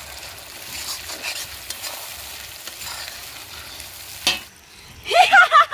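Onion, tomato and capsicum being stirred as they fry in oil in a hot kadai: a steady sizzle with scraping, and one sharp knock on the pan about four seconds in. Near the end, a brief voice.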